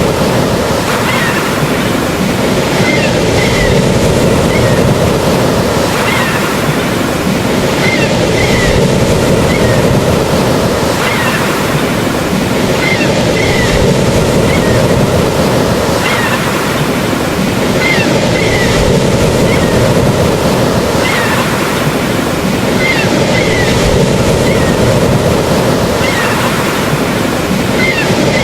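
Ocean surf washing steadily, swelling and easing every few seconds, with short high chirps coming through it again and again.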